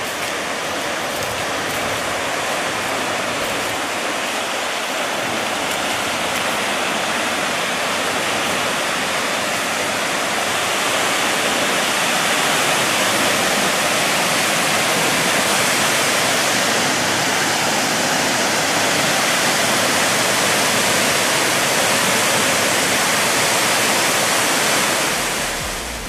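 Waterfall: two streams of water falling from a cliff into a rock pool, a steady rushing noise of falling water that grows a little louder about halfway through and fades near the end.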